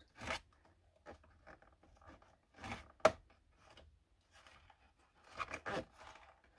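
Sticky tape being torn and peeled off the side of a cardboard toy box, in short scratchy strokes with a sharp click about three seconds in and a louder flurry of tearing near the end.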